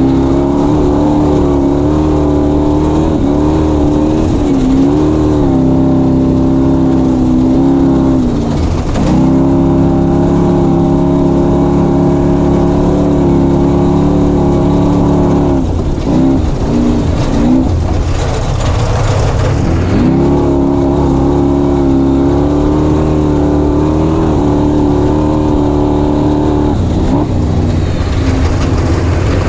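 Off-road race vehicle's engine running hard under load, heard onboard. The engine note holds mostly steady, dips briefly about nine seconds in, and falls away and wavers for several seconds past the midpoint as the throttle comes off, before picking back up.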